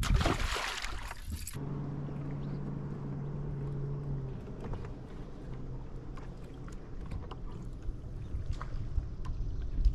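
A splash as a released bass drops into the water beside the boat. Then the boat's electric trolling motor hums steadily.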